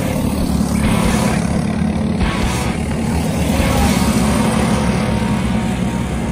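Briggs & Stratton LO206 single-cylinder four-stroke kart engines running as a field of racing karts laps the track, a steady sound without breaks.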